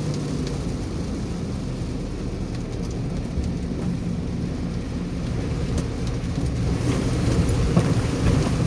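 Steady low rumble of a moving vehicle with the hiss of rain around it.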